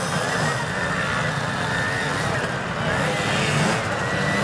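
Small trial motorcycles running, their engine pitch rising and falling as the throttle is worked, with voices of onlookers mixed in.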